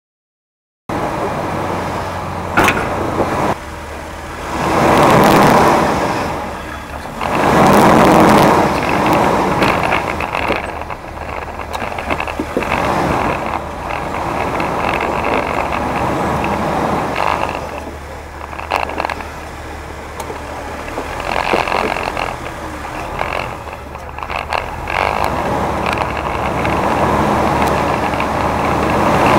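Off-road four-wheel-drive vehicle engines running as they crawl over granite rock, starting about a second in: a steady low drone with surges that rise and fall in loudness.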